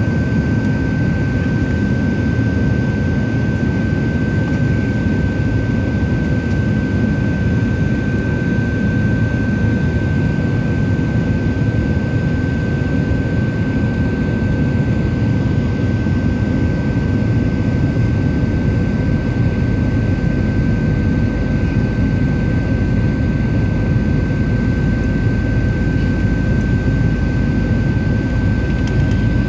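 Steady cabin roar of a Boeing 737-700 in flight, heard from a window seat: engine and airflow noise with a steady high whine running over it.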